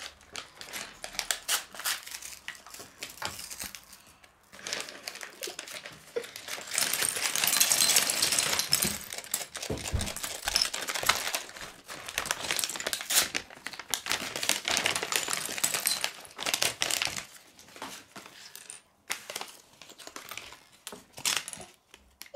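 Loose plastic LEGO pieces clicking and clattering onto a wooden tabletop as a paper LEGO parts bag is shaken out and crinkled, with a denser, louder stretch of rustling and clatter in the middle.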